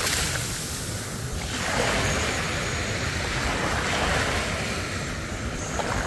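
Small sea waves breaking and washing up onto a sandy beach at the water's edge: a steady rushing hiss that swells with each wave, loudest about two and four seconds in.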